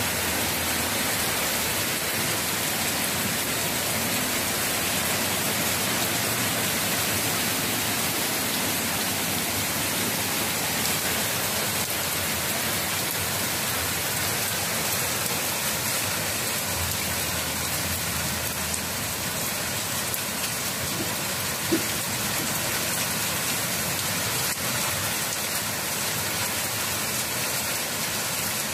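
Heavy rain pouring down in a steady, even hiss, with one short sharp tap about three-quarters of the way through.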